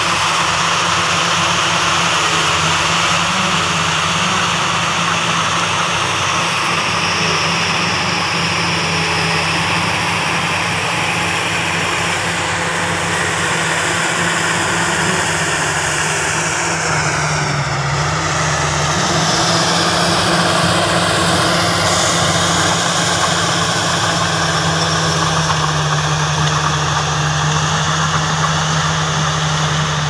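Diesel engines of heavy earthmoving machinery running steadily, an even low drone whose pitch shifts briefly about halfway through.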